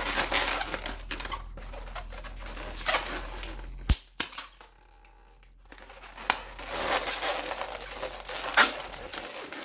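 Latex modelling balloons being twisted and wrapped by hand, rubbing against each other. There is a sharp snap about four seconds in, a short lull, then more rubbing and another sharp click near the end.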